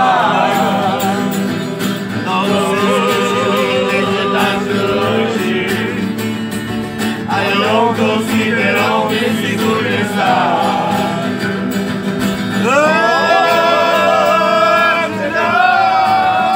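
Korçë serenade sung by a group of men to acoustic guitar accompaniment: wavering sung lines, then about two-thirds of the way through several voices come in together on long held notes.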